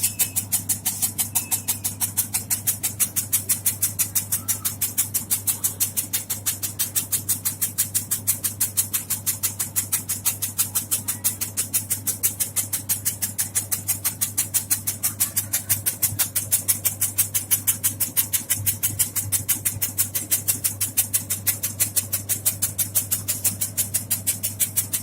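Automatic tobacco-leaf shredding machine running: a steady motor hum under a fast, even chopping rhythm of about four to five strokes a second.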